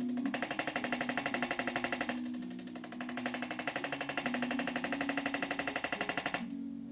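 A rapid, even mechanical pulsing of about a dozen beats a second, from a percussive treatment device. It pauses briefly about two seconds in and stops shortly before the end, over soft background guitar music.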